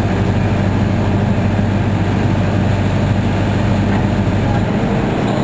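Diesel engine of a Botchan Ressha replica steam locomotive idling, a steady, even low hum.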